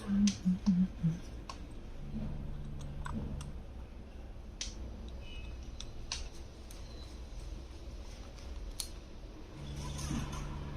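Sparse, irregular clicks and taps, with a low hum that comes in twice.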